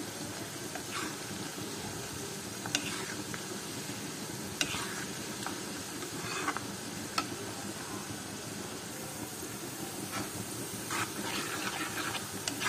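Chopped onions and green chillies frying in oil in a non-stick kadai, a steady sizzle, while a steel ladle stirs them and knocks against the pan in short clicks every second or two.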